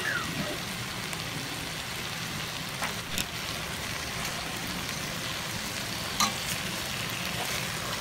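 Pork belly slices sizzling steadily in a hot pan, with a few short clicks of the tongs turning the meat, around three seconds in and again near six seconds.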